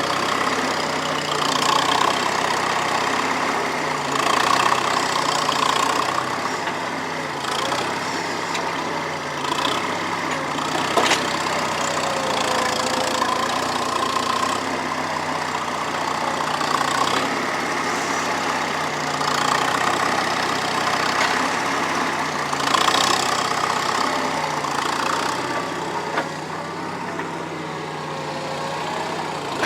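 Skid steer loader engine running and changing speed as it works a homemade digging attachment, with occasional faint squeals and a few sharp knocks.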